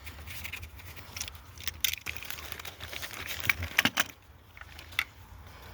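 Hands and tools working on engine parts: irregular clicks, light rattles and rustling, with a cluster of sharper clicks about three and a half to four seconds in and one more a second later.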